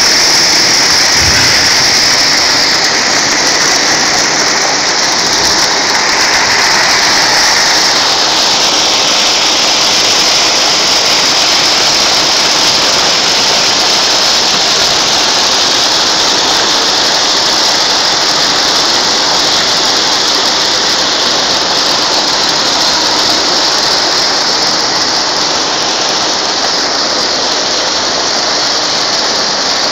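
Abrasive cloth slitting machine running: circular blades slitting a wide roll of abrasive cloth into narrow strips as they wind onto the rewind shafts. It makes a loud, steady, high-pitched rushing hiss.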